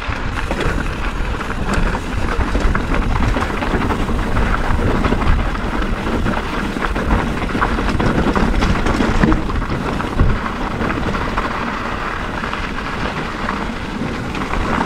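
Mountain bike riding over a loose, rocky gravel trail: continuous tyre crunch on stones, mixed with many small clicks and rattles from the bike.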